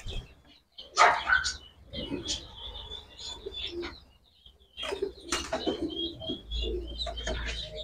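Pigeons cooing, with two short flurries of wing flapping, about a second in and again a little after five seconds.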